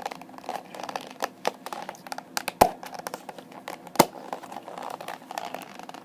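Hard plastic Blu-ray shell case being handled and pressed shut: rustling, creaking and clicking of the plastic, with two sharp snaps about two and a half and four seconds in. The shell is stiff and hard to close.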